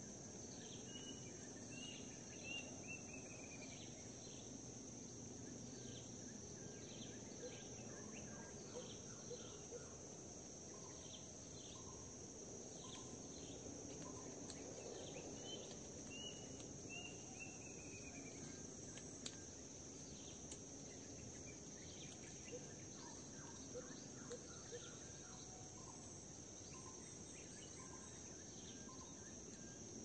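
Kalimantan rainforest ambience: a steady high insect drone over a faint low hum, with scattered bird chirps. A short run of descending whistled bird notes comes near the start and again about halfway through.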